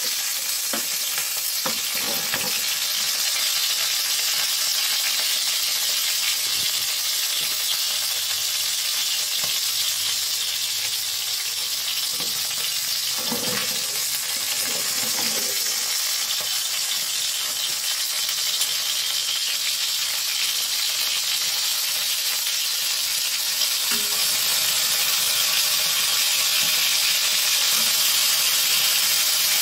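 Chicken leg quarter frying in shallow oil: a steady hiss of sizzling oil with scattered small crackles, growing a little louder near the end.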